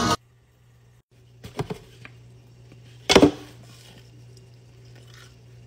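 A few quick crunches as crispy deep-fried food is bitten, the loudest about three seconds in, after some small clicks a second or so earlier. A low steady hum lies underneath.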